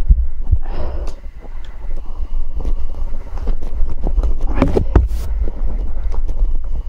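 Bicycle rattling and clattering over a rough forest track, irregular knocks over a steady low rumble of wind on the microphone.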